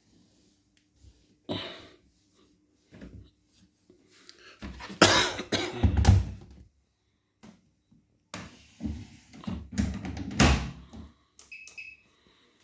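Handling sounds at a front-loading washing machine: scattered knocks, thuds and rubbing, with two longer bouts of loud bumping and scraping, and a short high beep near the end.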